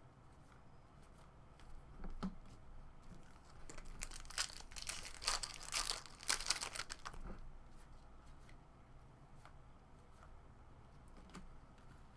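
Foil trading-card pack wrapper torn open and crinkled in the hands, mostly in a cluster of crackles between about four and seven and a half seconds in, after a small handling sound about two seconds in.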